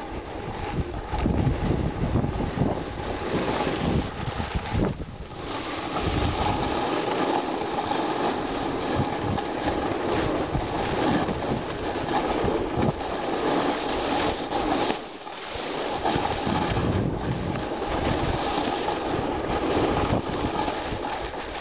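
Wind buffeting the microphone of a head-mounted camera on a fast downhill run, over a steady scraping hiss of sliding across packed, tracked snow. The rush eases briefly twice, about five and fifteen seconds in.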